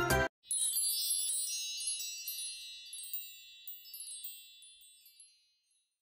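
Shimmering high chimes, like a wind chime, ring out as one cluster with a few light strikes and fade away over about five seconds. Background music cuts off just before.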